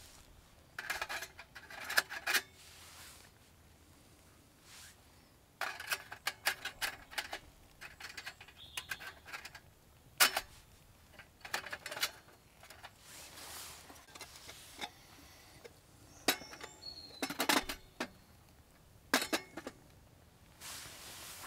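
Scattered bursts of metallic clinks and rattles with some rustling, about six clusters with quiet gaps between them: the Bushbox XL folding camp stove and cooking gear being handled and set up.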